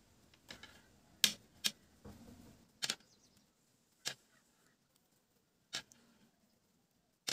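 Thin metal knitting needles clicking against each other as stitches are worked: about six sharp, irregularly spaced clicks, roughly one every second.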